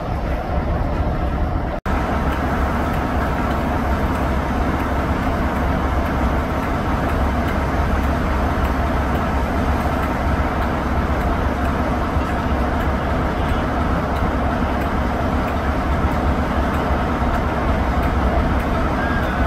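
Class 47 diesel locomotive's Sulzer twelve-cylinder engine running with a steady low drone, broken by a brief cut-out about two seconds in.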